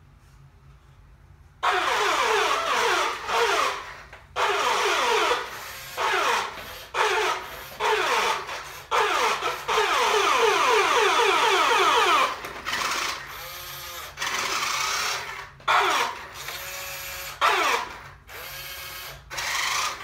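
1988 New Bright Rescue toy fire truck driving: its electric drive motor and gears whirring, mixed with its electronic sound effects, starting about two seconds in and going in stop-start stretches.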